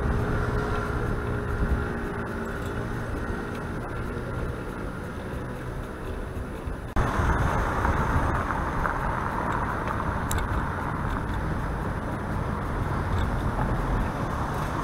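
Steady low wind and road rumble from a camera riding on a bicycle through city traffic, with cars close by. The sound changes abruptly about seven seconds in, becoming louder and hissier in the middle range.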